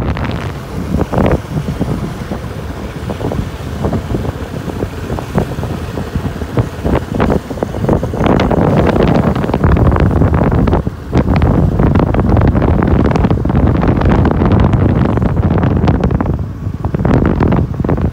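Heavy wind buffeting on the phone's microphone from a moving motorcycle, over the noise of the bike and the road, with a brief lull about eleven seconds in.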